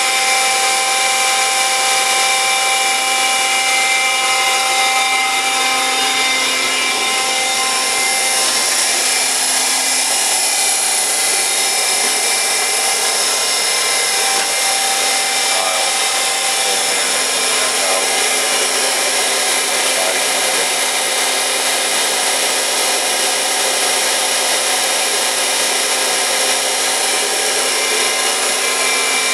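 Heald 271 Gage-Matic internal grinder running under power: a steady, high-pitched machine whine made of several tones from its spindle, workhead and hydraulics, with some tones shifting a couple of times.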